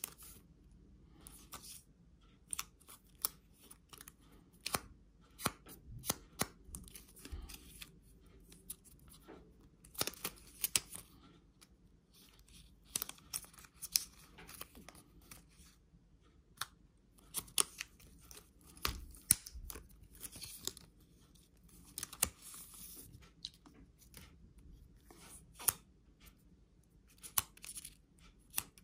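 Thin protective plastic wrap being peeled and crinkled off a new Apple Watch in several short rustling bursts, amid scattered light clicks and taps as the watch and its sport band are handled.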